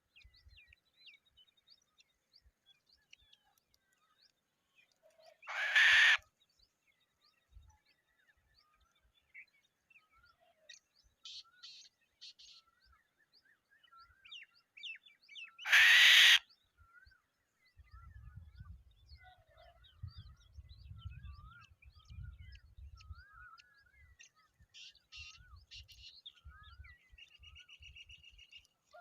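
Birds calling: two loud, harsh screeching calls, one about six seconds in and one about sixteen seconds in, over faint chirps and whistles of small birds. A low rumble, like wind on the microphone, comes in during the second half.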